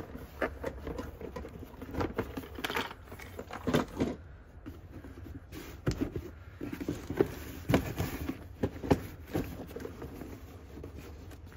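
Cardboard boxes being handled and shifted inside a cardboard carton by gloved hands: irregular knocks, scrapes and rustles of card against card, over a low steady background rumble.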